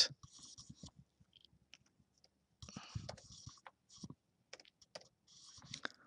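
Faint computer keyboard keystrokes in a few short runs of typing, with quiet pauses between: near the start, in the middle and again near the end.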